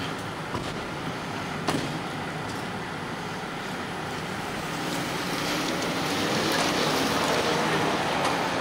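Road-vehicle noise on a city street, a steady hum that swells louder about halfway through as a vehicle nears, with a single sharp click about two seconds in.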